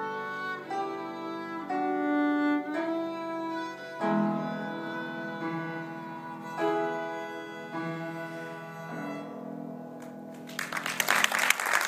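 Violin playing a slow melody of held notes over upright piano accompaniment, the closing bars of the piece. The music ends and audience applause breaks out near the end.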